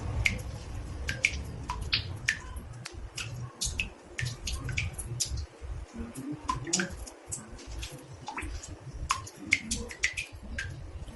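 Water drops falling into a bathtub: irregular short plinks, about three a second, some with a brief pitched ring, over a steady low rumble.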